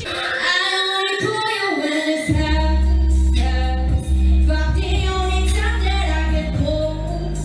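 A woman singing a pop melody into a microphone over backing music, whose steady bass comes in about two seconds in.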